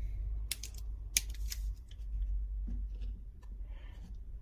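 Light metallic clicks and scrapes as the revolver frame is handled and a small screwdriver is set to a tiny screw, a few sharp clicks in the first second and a half, then softer scraping. A steady low hum runs underneath.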